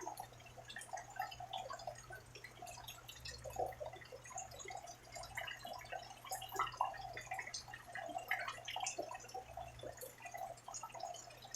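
Rain dripping: a dense, irregular patter of individual drops, with a steady low hum underneath.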